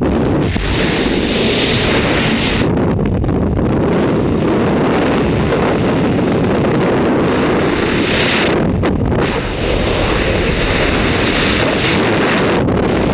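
Heavy wind buffeting on the microphone, a steady loud rush without pauses.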